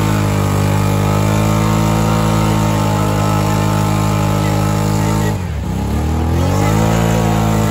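ATV engine held at high revs under heavy load as it churns through a deep mud hole. About five seconds in the revs drop sharply for a moment, then climb back up and hold.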